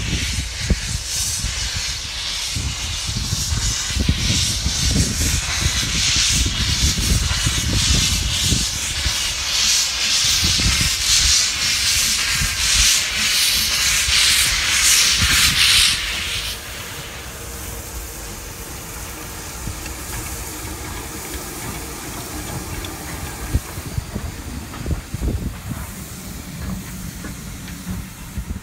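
Steam locomotive pulling away with a loud hiss of steam from its open cylinder drain cocks over low exhaust beats. About sixteen seconds in the hiss cuts off suddenly, leaving the quieter rumble of the coaches rolling past.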